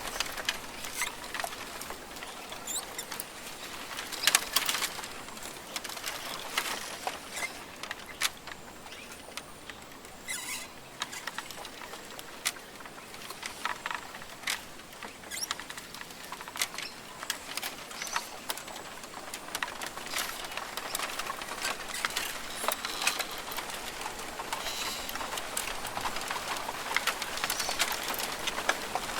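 Rainforest ambience: a steady hiss with scattered bird chirps and many short sharp ticks and crackles, the loudest cluster about four seconds in.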